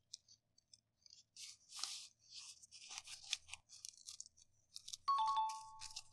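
Plastic toy pieces and packaging handled, with crinkly rustling and small clicks. About five seconds in, a steady two-note tone sounds for about a second.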